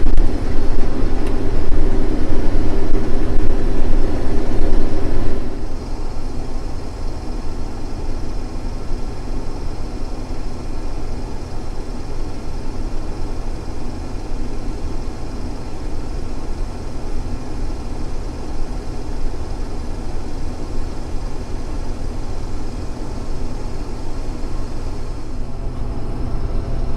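Combine harvester running steadily during soybean harvest. About five and a half seconds in, a strong hum drops out and the overall noise falls noticeably quieter, then holds steady.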